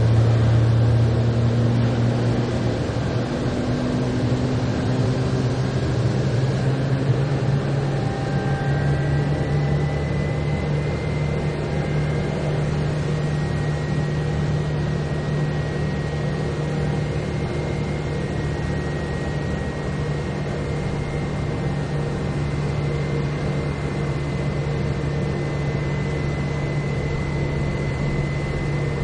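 Stealth bomber sound effect: a steady, loud drone of low hum and hiss, like a large aircraft's engines. The low hum rises slightly in pitch over the first several seconds, and a faint high whine joins about nine seconds in.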